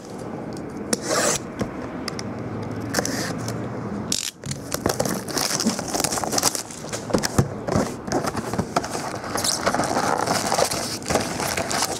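A Bowman Platinum baseball card hobby box being handled and opened: its plastic wrap and cardboard scrape and rustle, with many small clicks and taps. There is a brief pause about four seconds in.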